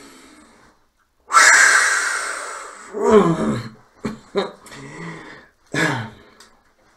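A man's long, heavy exhale, fading out, followed by short wordless vocal sounds and a few mouth clicks.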